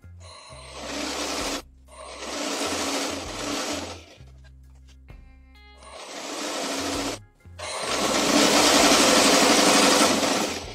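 Sewing machine stitching a seam in four runs, stopping briefly between them; the longest run comes near the end.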